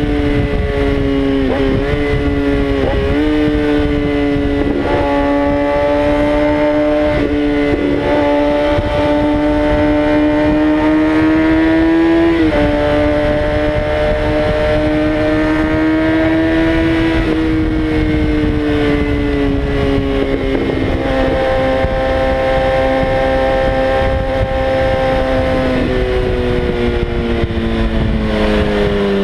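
Kawasaki Ninja ZX-6R 636's inline-four engine running hard at high revs at highway speed. Its pitch steps down a few times and falls steadily near the end, over a steady rush of wind noise.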